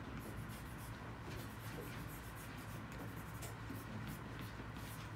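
Short, quick strokes of a drawing tool scratching on paper as dark shading and eyelashes are worked into a portrait's eyes. A low steady hum sits underneath.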